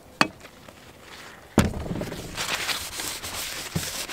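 A sharp tap, then about a second and a half in a paper towel starts rubbing hard over the van roof, wiping the surface clean with glass cleaner. Wind rumbles on the microphone under the rubbing.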